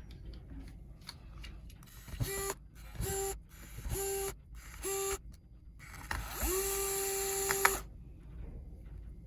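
A small electric motor whirs in four short runs of about half a second each, then spins up with a rising pitch into a longer steady run that ends with a sharp click.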